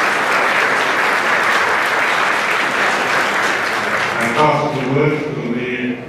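Audience applause, steady and dense, dying away about four seconds in as a man's voice begins speaking over a microphone.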